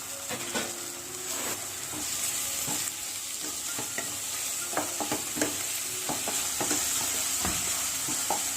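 Onions and ginger-garlic paste sizzling in hot oil in a tawa while being stirred, the utensil scraping and knocking against the pan again and again; the paste is frying until its raw smell cooks off.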